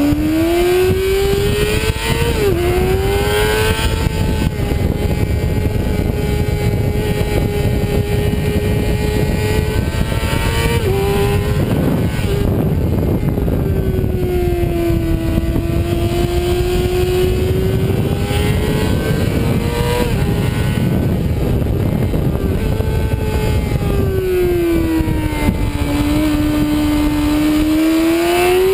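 Sport motorcycle engine ridden hard, heard from the bike itself through heavy wind rush. The revs climb and step down sharply at upshifts about two and a half and eleven seconds in, fall away twice while slowing, and climb again near the end.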